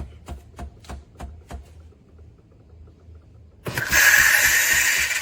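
Philips LatteGo espresso machine building pressure, with a regular ticking about three times a second that dies away after a second and a half. After a short lull, a loud hiss of steam frothing the milk starts suddenly almost four seconds in.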